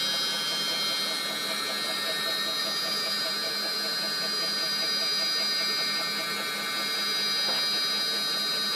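High-speed CNC router spindle with a 0.5 ball-nose bit running a finishing pass in wood: a steady high whine made of several held tones, with a faint, even pulsing beneath.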